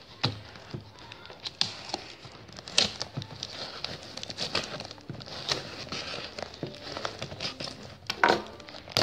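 Snap-off utility knife slicing through brown packing tape on a taped plastic box, and the tape being peeled back, in irregular scratches and crinkles, with sharper scrapes about three seconds in and near the end.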